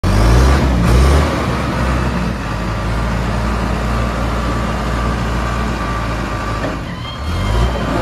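John Deere 310SJ backhoe loader's diesel engine running while the front loader bucket is raised on its hydraulics. It is loudest in the first second, settles to a steady note, dips briefly about seven seconds in, then revs up again near the end.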